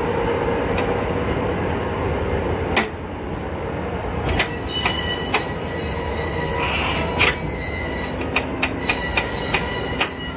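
DB class E 60 electric locomotive, with its rod-coupled wheels, moving slowly on the track. There is a steady running noise, thin squealing tones from the wheels, and sharp clicks and knocks that come more often in the second half.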